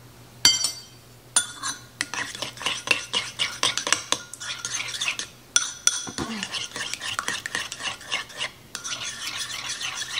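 A metal spoon stirring ketchup and mustard in a ceramic bowl: quick, repeated wet scrapes against the bowl in a few runs with short pauses. Two ringing clinks come in the first second and a half.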